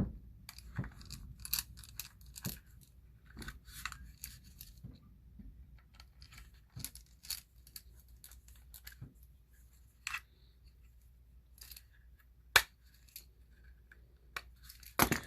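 Scattered clicks and scrapes of tools prying at the case of a small headphone amplifier to open it, with one sharp crack about three-quarters of the way through.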